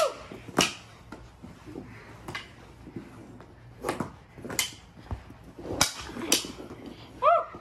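Mini hockey sticks clacking against each other and against the ball in knee-hockey play: about half a dozen sharp knocks at irregular intervals. A short shout comes near the end.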